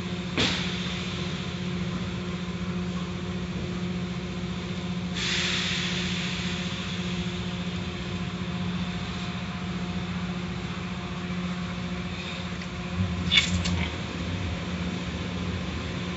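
Automatic car wash machinery running with a steady low hum. A stretch of spraying hiss comes about five seconds in, and sharp knocks come about half a second in and twice near the end, heard through the car's wet window.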